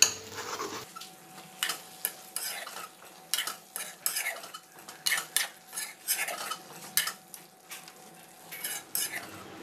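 Metal spatula stirring chicken gravy in a wok, scraping and clinking against the pan in a string of short, irregular strokes, over a faint sizzle of the gravy cooking. A spoonful of butter is being stirred in.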